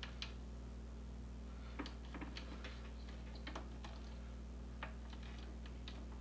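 Faint, scattered small clicks and taps of hands handling a plastic cable holder and flat cable on a 3D printer's frame, over a steady low hum.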